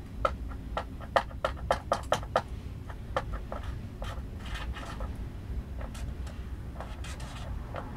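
Freight train of autorack cars rolling slowly past: a steady low rumble, with a quick run of sharp clicks and knocks in the first couple of seconds and a few scattered ones after.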